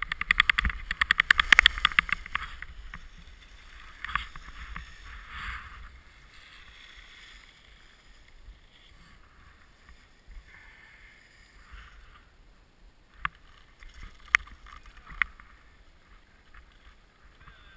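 Alpine skis scraping and chattering over hard-packed snow, loud and rapidly pulsing for the first couple of seconds, then settling into quiet sliding. Three sharp clicks in the last third.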